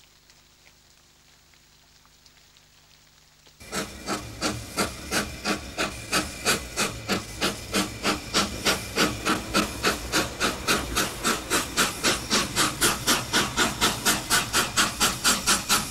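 Quiet for the first few seconds, then a narrow-gauge Ffestiniog Railway steam locomotive chuffing, its exhaust beats quickening from about two or three a second to about four a second.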